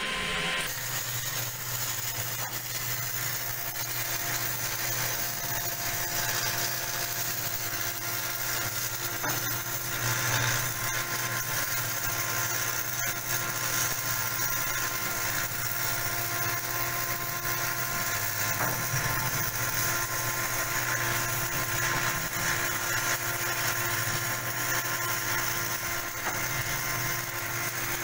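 Steady machine drone: an even hiss over a constant hum, with no break or change in pitch.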